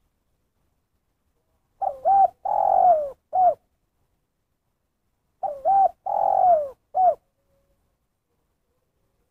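Spotted dove (tekukur) cooing two identical phrases about three and a half seconds apart. Each phrase is a quick two-part note, a longer coo falling in pitch, then one short closing note: the 'kuk satu' call, ending on a single note.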